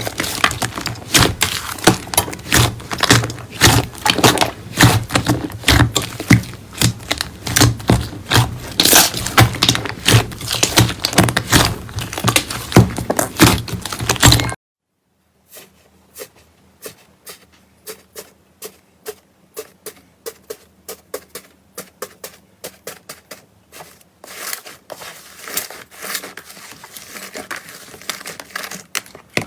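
Slime being squeezed and poked by hand, a dense run of loud clicks and crackling pops. About halfway through it cuts off, and a quieter run of scattered pops follows.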